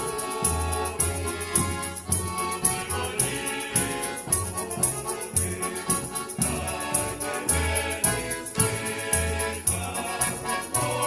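A folk choir singing a Ukrainian song over an accompaniment with a steady beat, bass notes and a jingling high percussion.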